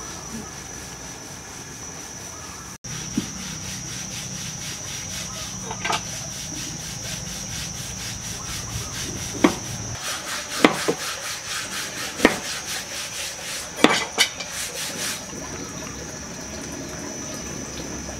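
Hand work with a knife on a wooden cutting board: a quick, even run of rubbing, scraping strokes, several a second, broken by a few sharper knocks of the blade on the board in the middle.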